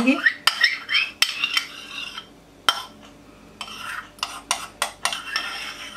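Metal spoon clinking and scraping against the yogurt container and serving bowl as thick whisked yogurt is spooned onto the chaat: a string of sharp clicks with soft scraping between them.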